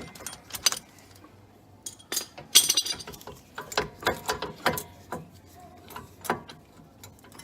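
Irregular metal clicks and clinks of a C-clamp and brake caliper being handled just after the caliper piston has been compressed, with a quick run of ringing clinks about two and a half seconds in.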